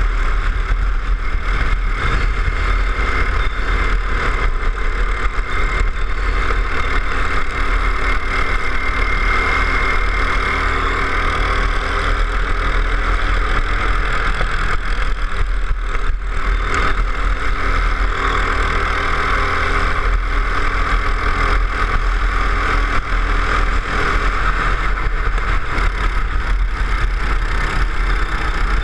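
Go-kart engine running continuously, heard from on board the kart, its pitch rising and falling gently as the throttle is worked through the corners.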